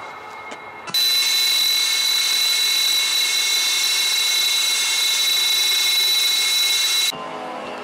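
Sukhoi Su-30SM's AL-31FP turbofan engines running with a loud, steady high-pitched whine over a rush of hiss. The whine starts abruptly about a second in and cuts off suddenly near the end, giving way to a quieter, lower sound.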